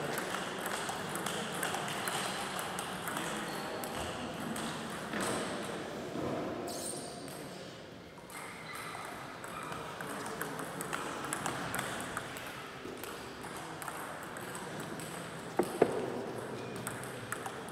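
Table tennis balls clicking off bats and table tops in a sports hall, from the near game and from neighbouring tables, with a couple of louder close clicks near the end.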